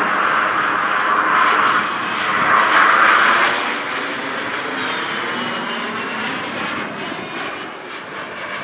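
Aermacchi MB-339 PAN jet trainer's turbojet as the aircraft flies past. The jet noise is loudest about three seconds in, then fades away with a whine that drops in pitch.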